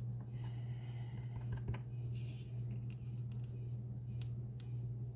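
A steady low hum, with a few faint taps and clicks of a small rubber stamp being inked and pressed onto a paper punch-out.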